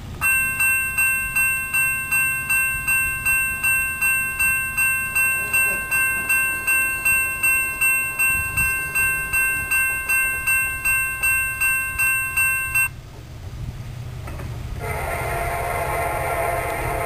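Electronic railroad grade-crossing bell ringing steadily, a bit more than two strokes a second, stopping suddenly about 13 seconds in. About two seconds later the air horn of the approaching train's lead locomotive, a CSX SD70MAC, sounds and holds to the end.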